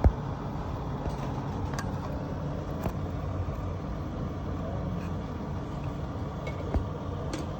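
Steady low rumble with two sharp knocks, one right at the start and one near the end.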